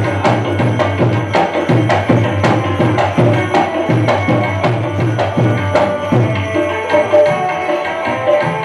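Instrumental folk music: hand drums beating a steady, quick rhythm of about two to three strokes a second under a held melody line.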